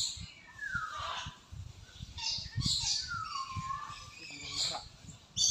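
Rope swing creaking on its wooden frame as it swings back and forth: a falling squeak about every three seconds, with short scraping rustles in between.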